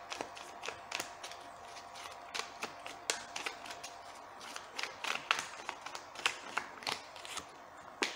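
A deck of tarot cards being shuffled hand to hand: a quick, irregular run of soft card flicks and slaps. Near the end a card is dropped onto the cloth-covered table.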